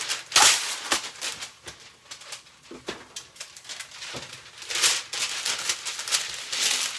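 Parchment paper being pulled out and torn off, then rustled and crinkled as it is spread out, with a sharp rasp about half a second in and another about five seconds in, and small handling clicks between.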